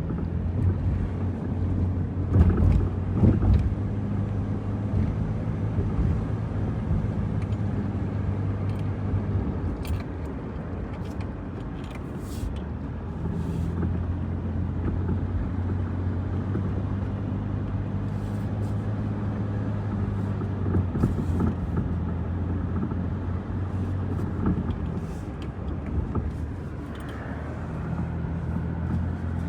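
Car driving, heard from inside: a steady low engine hum with road noise that changes pitch a little now and then.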